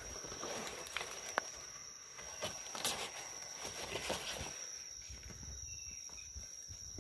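Footsteps crunching through dry leaf litter and brush, with irregular crackles and twig snaps, over a steady high-pitched insect drone.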